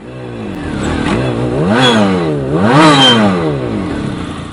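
An engine being revved twice. The pitch climbs to a peak just under two seconds in, drops, then climbs to a second, louder peak about three seconds in before falling away slowly.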